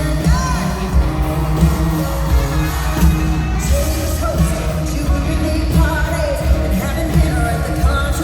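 Live country-pop concert music: a female lead vocal with sliding, held notes over a full band with heavy bass and drums.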